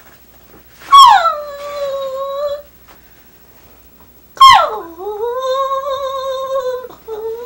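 A woman howling like a dog to imitate her husband's snoring. There are two long howls that each start high and slide down, the second held for about two and a half seconds, and a third begins near the end.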